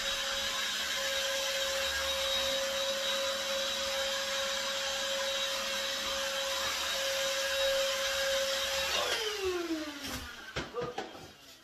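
Handheld cordless vacuum cleaner running steadily with a high whine, sucking up scraped-out grout from the tile joints. About nine seconds in it is switched off and winds down with a falling pitch, followed by a few light knocks.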